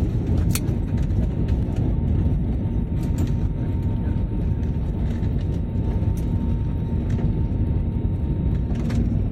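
Airliner cabin noise during landing: a steady low rumble of engines and rushing air, with a faint steady high whine over it.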